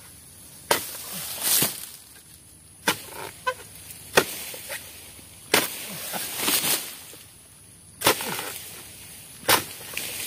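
A pole-mounted harvesting sickle cutting oil palm fronds: about six sharp cutting strikes, one every one and a half to two and a half seconds, several followed by the rustle of a cut frond falling through the leaves.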